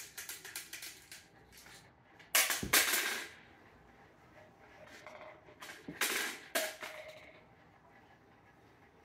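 A few sharp knocks and clatters of toys being handled and dropped on a hard floor. The loudest pair comes about two and a half seconds in, one with a dull thud, and a smaller group follows around six seconds.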